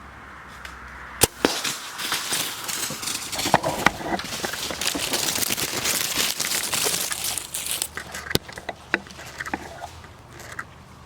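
A sharp snap about a second in, then several seconds of loud crashing and crackling through dry leaves and brush as a white-tailed deer bolts through the woods. Scattered twig snaps follow before it fades.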